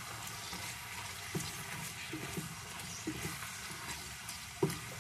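Diced raw chicken sizzling in oil in a nonstick frying pan while a spatula stirs it, with a few soft knocks and scrapes of the spatula against the pan.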